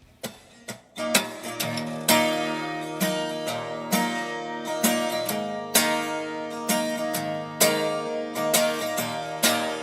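Acoustic guitar playing a song's instrumental intro: a couple of soft notes, then from about a second in a steady picked and strummed pattern with an accented strum roughly once a second.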